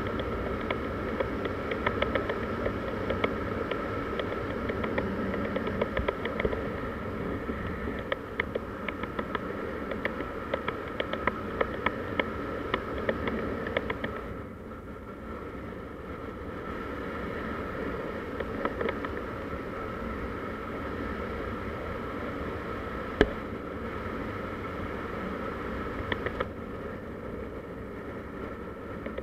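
Motor scooter engine running steadily under way, with wind noise and frequent small clicks. The engine eases off about halfway through, and one sharp knock comes about three quarters of the way through.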